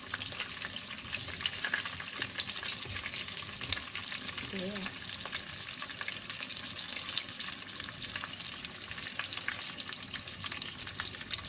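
Prawn spring rolls frying in hot oil: a steady sizzle with dense fine crackling, as the rolls near golden brown.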